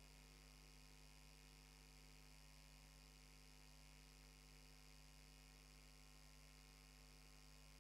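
Near silence with a faint, steady mains-type hum.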